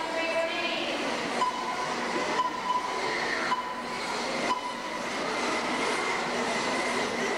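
1/10-scale radio-control off-road race cars running laps on a dirt track: a steady high whine of motors and drivetrains, with brief dips in level about once a second.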